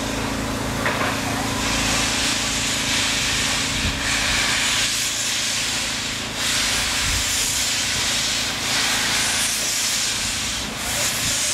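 PKP Ol49 steam locomotive moving slowly, steam hissing from its open cylinder drain cocks in long surges every second or two. A steady low hum sits under the hiss for the first few seconds.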